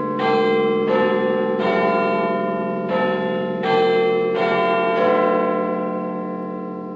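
Bells struck in a run of about seven strokes, their ringing overlapping, then slowly dying away after the last stroke about five seconds in.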